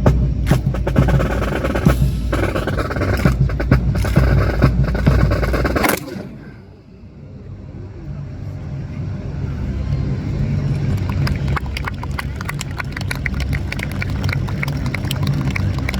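Drumming and sharp strikes accompanying a marching drill, cutting off abruptly about six seconds in. After a short hush a low rumble rises, and a patter of clapping builds near the end.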